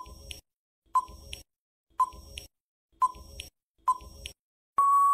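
Quiz countdown-timer sound effect: five sharp ticks about a second apart, then a long steady beep near the end as the time runs out.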